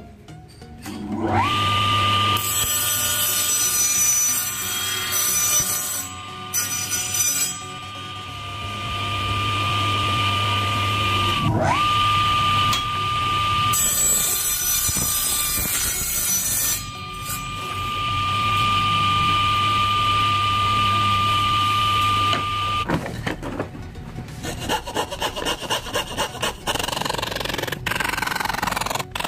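Small benchtop table saw switched on and spinning up to a steady high whine, cutting 9 mm plywood in spells of loud rasping noise; it drops off and restarts twice before winding down. Near the end, a hand coping saw cuts the plywood in quick, even rasping strokes.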